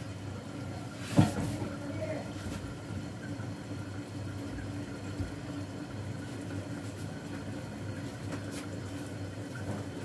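Steady low hum with one sharp knock about a second in and a few faint clicks later.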